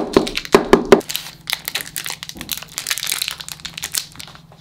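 Snack wrapper crinkling and tearing as it is pulled open by hand, with a few heavier handling knocks in the first second.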